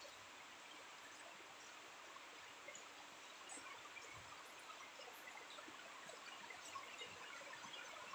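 Rain falling steadily: a faint, even hiss with scattered small drop ticks.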